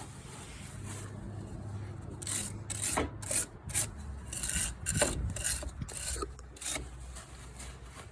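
Paper towel scrubbing metal splines on an ATV's rear brake drum hub, a run of irregular scratchy rubbing strokes starting about two seconds in.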